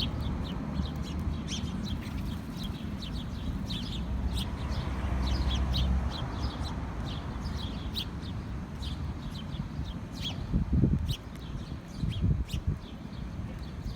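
A flock of small birds chirping, with many short high calls in quick succession. Underneath is a low rumble, and two dull thumps come in the last few seconds.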